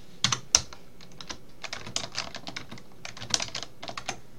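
Typing on a computer keyboard: a quick, irregular run of keystrokes, with a few louder key strikes near the start.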